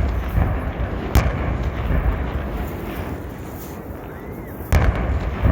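Aerial fireworks shells bursting: two sharp bangs, about a second in and near the end, over a continuous low rumble of further booms.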